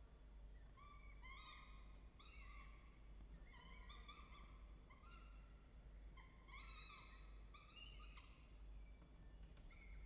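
Peregrine falcons calling faintly in the nest box during a feeding: short chirping calls, each rising then falling, repeated about once a second in small groups, pausing near the end.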